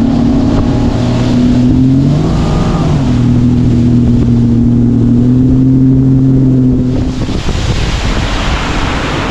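Bass boat's outboard motor running at speed, rising in pitch briefly about two seconds in and settling back, then throttled off about seven seconds in as the boat comes off plane. Wind and water rush over the microphone throughout.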